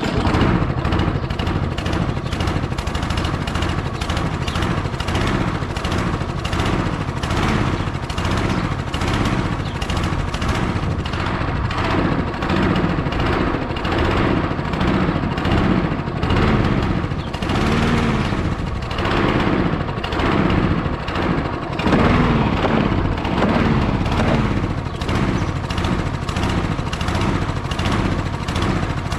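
Briggs & Stratton Quantum single-cylinder engine on a Craftsman 21-inch push mower catching on the first pull and running roughly, its speed rising and falling about once a second. The owner takes the bad running for a dirty carburetor.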